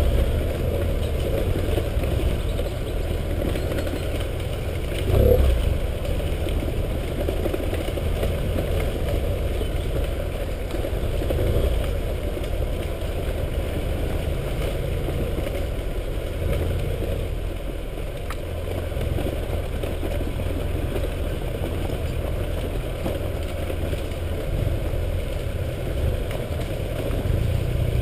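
BMW F650GS/F800GS parallel-twin adventure motorcycle running at a steady, low pace over a rough dirt track. A brief louder thump comes about five seconds in.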